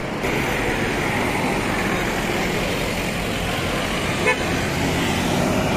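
Steady highway traffic, with cars and trucks passing close by. A short horn beep sounds once about four seconds in.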